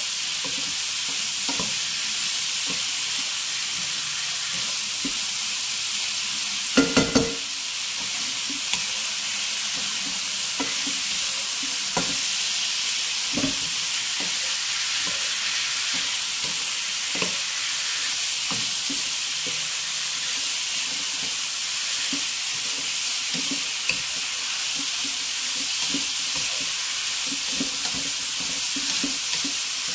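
Masala mango pickle mixture sizzling steadily in a pan while it is stirred, with scattered knocks of the utensil against the pan. Three quick loud knocks come about seven seconds in.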